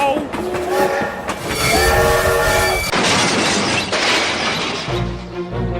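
Two long blasts of a multi-tone train horn, each a steady chord, followed by a rushing noise of a passing train. Background music with a pulsing bass beat comes in near the end.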